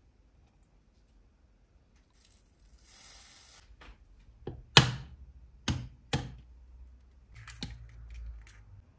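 An egg knocked sharply on the rim of a plastic blender cup three times to crack it, the first knock the loudest, then a run of small clicks as the shell is pulled apart over the cup. A soft rustle comes before the knocks.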